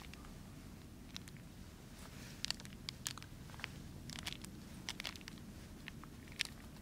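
Light crinkling and small taps of a Starbucks VIA paper stick packet being shaken and emptied into a Jetboil cup, with rustles of a heavy glove; the sounds come as scattered short clicks and rustles.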